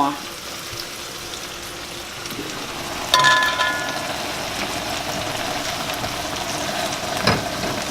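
Onions frying in olive oil in a pan, a steady sizzle. About three seconds in a metal lid clinks and rings briefly as the lid of the quinoa pot is lifted, and the bubbling of the boiling quinoa water joins the sizzle.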